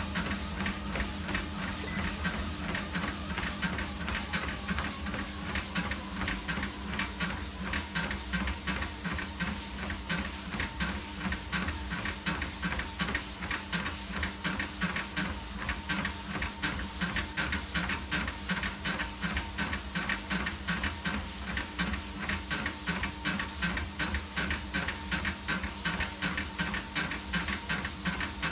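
Fytter exercise machine running with an abnormal mechanical noise: a fast, even pulsing over a steady hum that keeps on without change.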